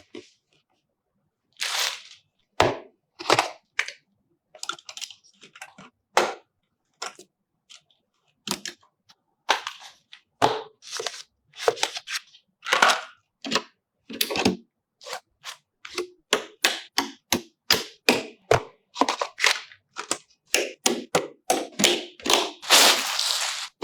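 Clicks, clacks and knocks of PC hardware being handled and fitted. They come singly with silent gaps at first, then about two a second in the second half, ending in a longer rustle.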